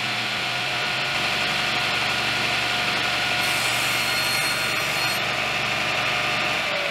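Table saw running steadily with its blade spinning free; about three and a half seconds in, the blade cuts across a wood panel for under two seconds, adding a bright hiss. Near the end the motor's hum starts falling in pitch as the saw winds down.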